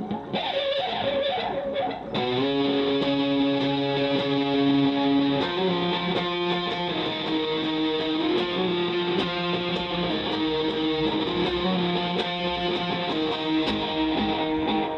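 Electric guitar played through a homemade delay pedal with the delay time turned way up. Chords and notes are struck and held, their echoes ringing on under the playing.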